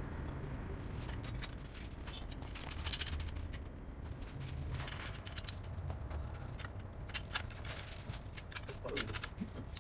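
Scattered light clicks and clinks of bicycle parts being handled and fitted, as a rear carrier rack goes onto a child's bicycle, over a steady low hum.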